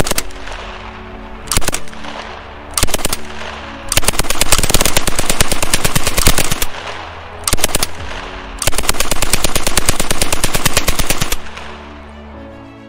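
Sound-effect automatic gunfire. Three short bursts of machine-gun fire come first, followed by two long, sustained bursts of several seconds each with a short pause between them, before the firing stops near the end.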